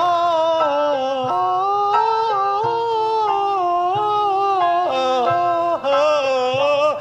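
A person singing a slow, wordless melody of long held "oh" notes that step up and down in pitch.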